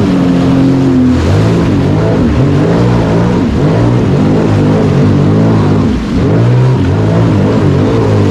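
Sea-Doo personal watercraft engine running under way, its pitch rising and falling as the throttle changes, with a brief drop about six seconds in.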